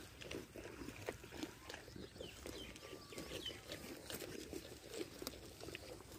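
Goats grazing, biting off and chewing grass in a run of irregular soft crunches and clicks.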